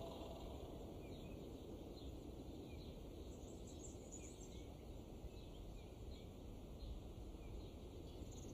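Faint outdoor ambience: a steady low background noise with small birds chirping faintly and irregularly.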